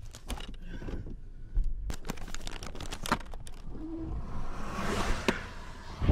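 Handling noise from a camera being moved about: a run of clicks, knocks and scrapes, with a couple of heavier thuds and a short rushing swell about five seconds in.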